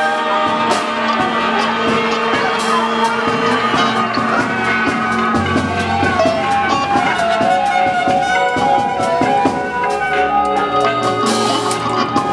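Large mixed ensemble of saxophones, trumpet, electric guitar, accordion, violin and drum kit playing together: many overlapping held notes over a steady patter of drum and cymbal strokes.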